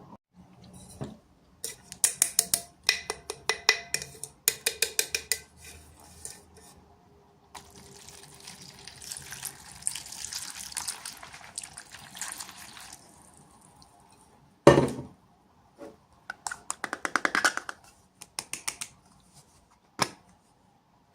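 Small plastic toy pieces and packaging being handled: bursts of rapid clicking and rattling, a stretch of rustling in the middle, and a single sharp knock, the loudest sound, about two-thirds of the way through.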